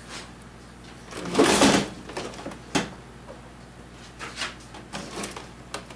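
Handling noise from vehicle interior parts being worked loose: a loud scraping rush about a second in, a sharp click shortly after, then scattered smaller clicks and rustles.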